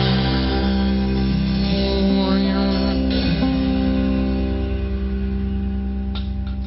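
Acoustic guitars and bass letting the song's last chord ring out, slowly fading.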